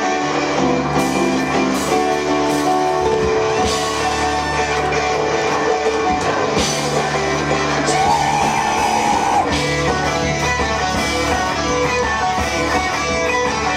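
Live rock band playing an instrumental song intro: guitar over bass and drums, with no vocals yet.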